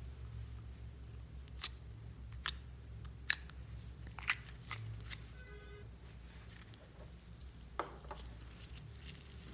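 Thick blue slime being squeezed, kneaded and stretched by hand, giving a series of sharp clicks about once a second and a brief squeak about halfway, over a low steady hum.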